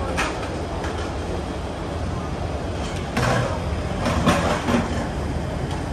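Street food stall ambience: a steady low mechanical hum, with a few brief clatters about three seconds in and again a second or so later.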